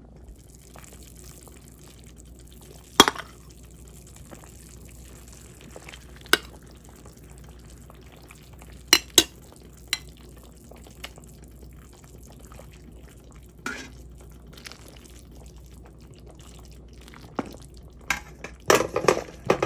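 Metal ladle clinking against a stainless steel pot and a ceramic bowl while beef meatballs are dished up: a handful of separate sharp clinks a few seconds apart, with a quicker cluster near the end, over a faint low hum.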